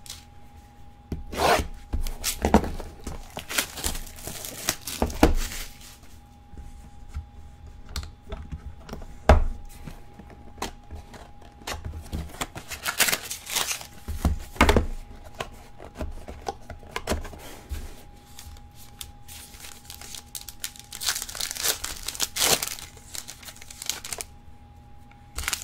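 A trading-card box and its packaging being torn open and rustled by hand, with scattered sharp knocks as the box and cards are handled. The tearing comes in several longer stretches, about a third of the way in, around the middle and near the end.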